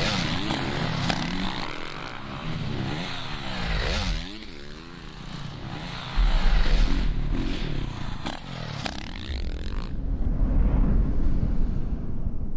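Motocross bike engines revving and passing, the pitch rising and falling again and again with the throttle. About ten seconds in, the upper part of the sound falls away, leaving a duller engine sound.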